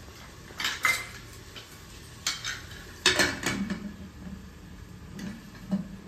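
Steel kitchen utensils and pots clinking and clattering against each other: a handful of sharp metal knocks, the loudest cluster about three seconds in.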